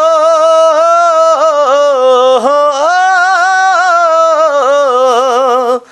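A man singing unaccompanied, holding one long drawn-out vowel of a Nepali song with quick ornamental turns in the pitch. The voice stops just before the end.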